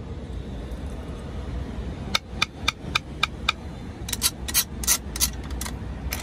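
Toy gumball machine's coin-and-crank mechanism clicking as it is worked by hand: a run of sharp clicks about four a second starting about two seconds in, then quicker, uneven clicks near the end.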